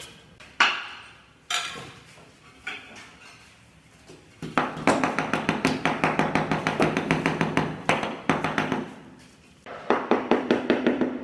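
Mallet tapping ceramic tiles to bed them: three separate knocks, then a long run of rapid, evenly spaced taps, several a second, and another short run near the end.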